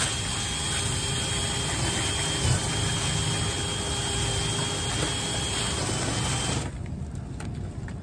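Cordless drill running steadily, spinning a rotary brush on flexible rods inside a clogged dryer vent duct, with a faint high motor whine; it stops near the end. The lint is packed so thick that it twists the brush.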